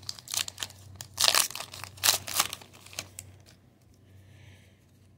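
Foil wrapper of a trading-card pack being torn open and crinkled by hand: rapid irregular crackling for about three seconds, then quieter for the rest.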